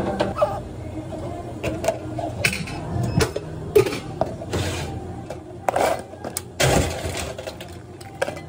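Drink-making clatter at a bubble tea counter: plastic cups set down with several clicks and knocks, and ice scooped into a cup of tea in two longer rattling bursts about halfway through and a little later.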